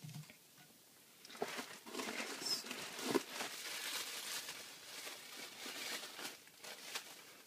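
Packaging being handled, crinkling and rustling with scattered sharp clicks, starting about a second in and going on until near the end.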